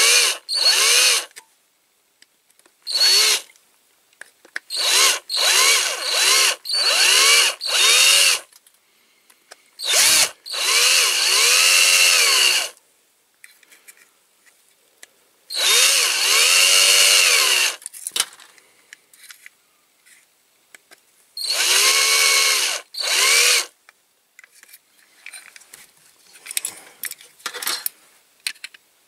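Electric drill run in repeated short bursts of a second or two, its motor winding up and down each time, drilling out the rivets that hold a diecast toy lorry together. Near the end there are only faint light clicks and taps.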